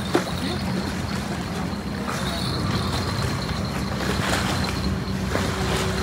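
A steady low motor hum under a haze of wind noise, with one sharp knock just after the start.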